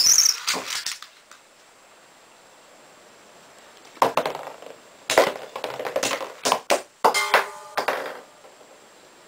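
Metal Fight Beyblade tops launched with a quick ripcord zip, spinning with a faint hiss, then colliding in a run of sharp metal clashes and clanks from about four seconds in, one clash near the end ringing briefly.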